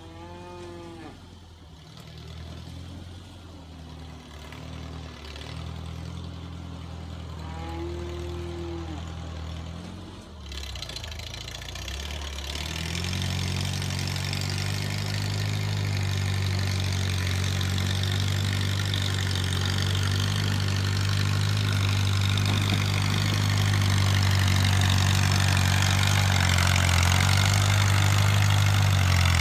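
The 1949 Farmall Cub tractor's four-cylinder flathead engine runs steadily under load while the tractor pushes a pile of cow manure with its front blade. The engine is faint at first and grows much louder about halfway through as the tractor comes close.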